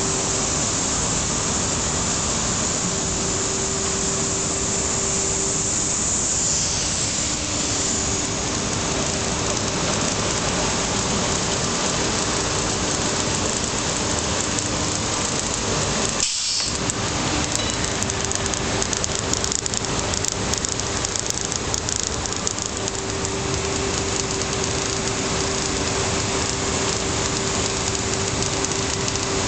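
Running 1983 Colines 200 bubble film extrusion line: a steady dense hiss of machinery with a faint steady hum. It breaks off for an instant a little over halfway through.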